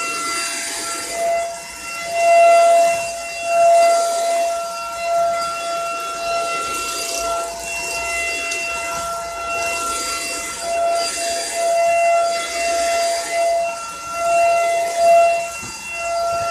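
Dirt Devil Power Stick 4-in-1 stick vacuum running, its motor giving a steady high whine over the rush of air, the sound swelling and dipping as it is pushed back and forth.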